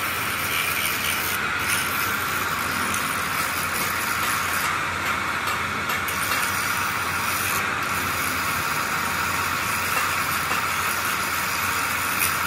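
Straight die grinder with a small abrasive disc running steadily, grinding the cast iron around a bore opening of an engine block, a constant high whine over a grinding hiss.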